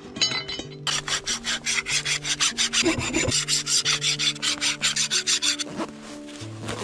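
Hand file rasping across leaf-spring steel in quick, even strokes, about five a second, shaping a knife blade by hand. The strokes start about a second in and stop near the end.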